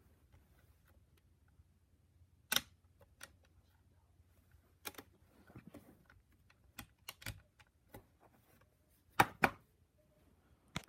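A dozen or so irregular clicks and knocks from a ViewMaster projector being handled, its batteries dying. The loudest is a knock about two and a half seconds in, then a close pair near the end.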